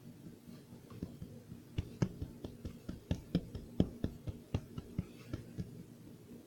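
A quick irregular run of light taps and clicks, densest and loudest in the middle, like small handling knocks.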